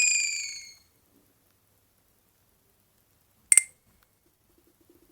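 Alcatel OT-810 mobile phone's electronic tones. A slightly falling chime fades out within the first second, then a single short, sharp key beep comes about three and a half seconds in.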